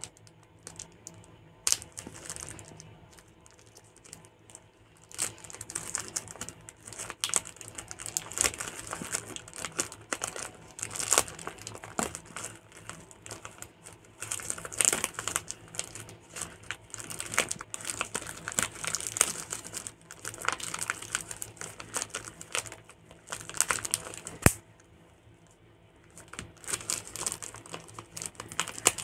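Plastic courier mailer bag crinkling and tearing in irregular bursts as it is picked and cut open by hand, with a few sharp clicks and a short lull near the end.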